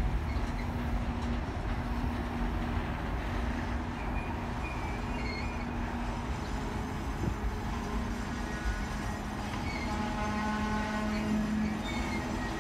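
Double-stack container train of TTX well cars rolling past: a steady rumble of steel wheels on rail, with thin, high wheel squeals joining in over the last few seconds.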